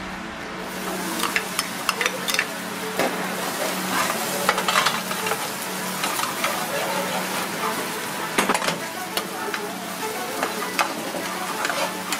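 Chopped green onion and other ingredients sizzling in hot oil and sauce in a nonstick frying pan, with the sizzle swelling about a second in. A plastic ladle stirs them, scraping and tapping against the pan again and again.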